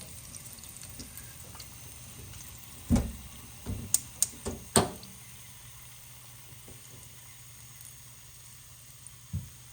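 Hot frying oil dying down to a faint hiss after the burner is switched off, with a handful of sharp clatters of kitchen utensils or pans about three to five seconds in and one more click near the end.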